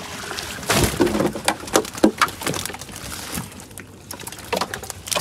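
A netful of fish spilling out of a mesh bag net onto a heap of fish in the boat's hull: many quick wet slaps and patters, loudest in the first couple of seconds, easing off and then picking up again near the end.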